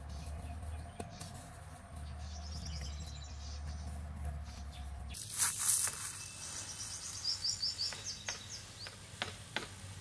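A low steady rumble stops abruptly about five seconds in, then a plastic bag rustles loudly. A bird chirps in a quick run of high notes, and near the end a few ticks come as seed starts trickling from the bag into a hollowed palm-wood stump.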